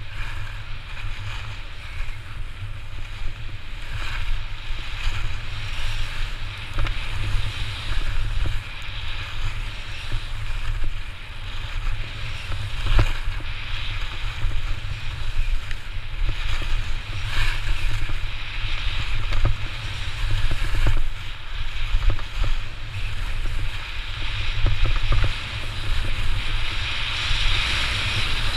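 Wind buffeting a moving action camera's microphone as a low rumble, with edges hissing and scraping over packed snow down a steep slope. The scraping swells and fades with each turn.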